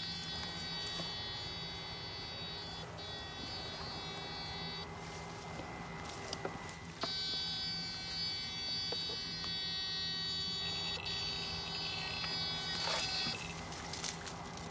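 Electric fish-shocker's high-pitched electronic whine, with a steady low hum under it. The whine switches on and off in spells of a few seconds, a sign the shocker is being triggered while the pole is in the water. Near the end there is a short splash in the water.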